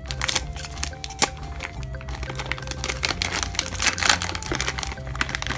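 Foil blind bag crinkling and crackling as fingers pull it open and rummage inside, over steady background music.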